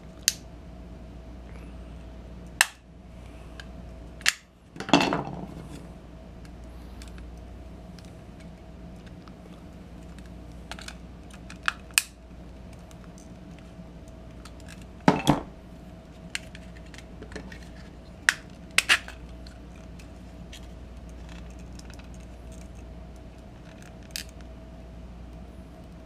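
Sharp clicks, snaps and occasional knocks of a screwdriver prying at the cracked plastic shell of an LED bulb, coming irregularly about a dozen times. Two of the knocks are louder and ring briefly.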